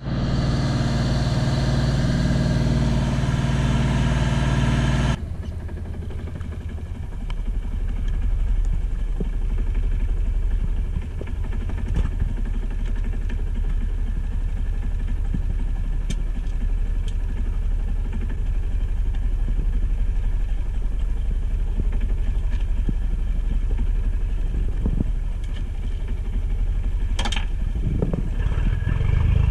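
Boat engine running, louder and brighter for the first five seconds, then dropping abruptly to a steady low idle. A few light knocks sound over it, the clearest near the end.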